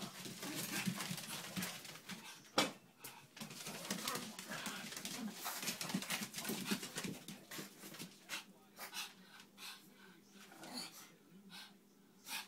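Two Pekingese dogs play-wrestling, making dog noises amid busy scuffling, with one sharp knock about two and a half seconds in. The scuffle thins out and quietens after about eight seconds.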